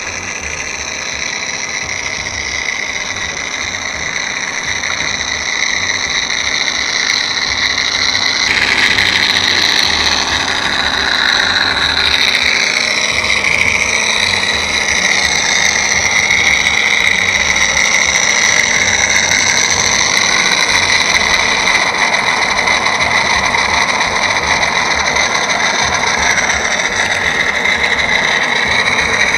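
Freewing radial engine sound module playing a simulated radial piston engine running at idle through the model's onboard speaker. It grows louder over the first several seconds, and its tone shifts about eight seconds in.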